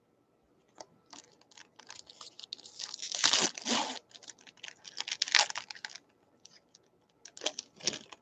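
A baseball card pack's wrapper being torn open and crinkled: a run of crackling rips, loudest about three and five seconds in, with a few more crinkles near the end.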